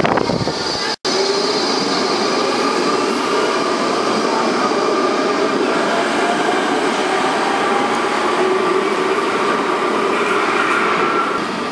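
Baltimore Metro Subway train of stainless-steel cars running along an underground station platform: a steady loud rail rumble and wheel noise with a faint rising whine. The sound cuts out for an instant about a second in.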